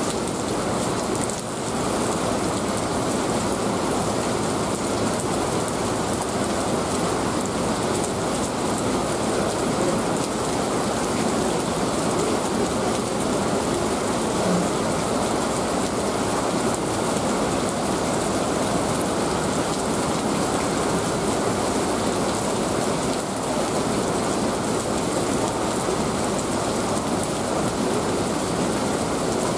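Heavy downpour: a steady hiss of rain falling and splashing on wet pavement.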